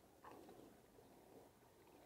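Faint, irregular splashing of water as a hooked carp thrashes at the surface close to the bank.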